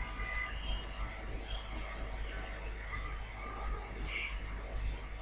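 Faint steady background hum and hiss, with a thin high-pitched whine that drops out for a couple of seconds mid-way and then returns.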